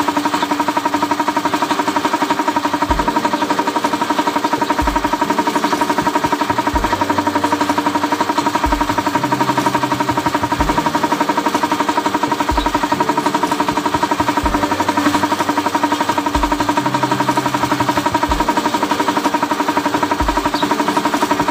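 Added soundtrack over the footage: a steady buzzing, engine-like drone with a deep beat about every two seconds and low notes that step in pitch between the beats.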